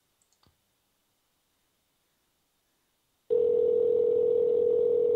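Telephone ringback tone over the line while a call is being put through, not yet answered: about three seconds of silence, then one steady ring lasting about two seconds.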